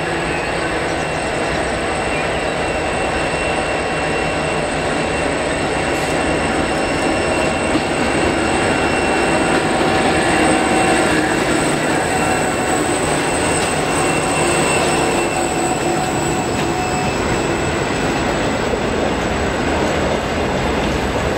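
Ballast train passing: two 81 class diesel-electric locomotives go by, loudest about halfway, and are followed by the steady rumble and wheel-on-rail noise of loaded-looking ballast hopper wagons.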